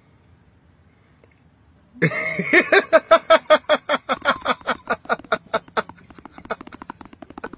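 A voice cackling in quick rhythmic bursts, about five a second. It starts suddenly about two seconds in, loud at first, and fades away over the last two seconds.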